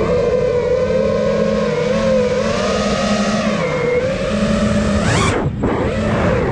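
A 5-inch FPV freestyle quadcopter's brushless motors and propellers whining, the pitch wavering as the throttle changes. About five seconds in it punches up sharply in pitch, then drops away quickly as the throttle comes off.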